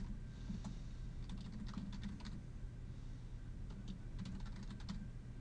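Computer keyboard keys clicking as a command is typed, the keystrokes coming in short irregular runs. A faint steady low hum sits underneath.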